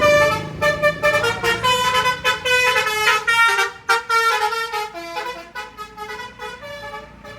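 Indonesian bus 'telolet' multi-tone horn playing a quick melody of short notes that step up and down in pitch. It grows fainter over the last few seconds.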